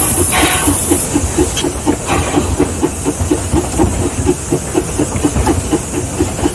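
Mason Bogie 0-6-4T steam tank locomotive running under steam, with steady exhaust chuffs about four a second over a low rumble. A high hiss of steam cuts off about a second in.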